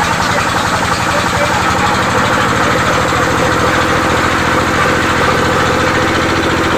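A saw's engine idling steadily, with a fast, even low pulsing.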